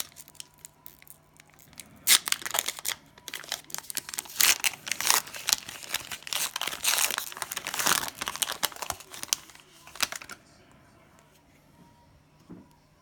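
Cellophane wrapper of a trading-card cello pack being torn open and crinkled: a few short crackles at first, then a long stretch of dense tearing and crinkling that stops about ten seconds in.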